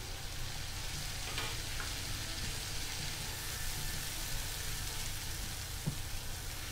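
Masala-coated snakehead fish steaks shallow-frying in oil on a dosa griddle over a low flame: a steady sizzle as the underside browns, with one small tick near the end.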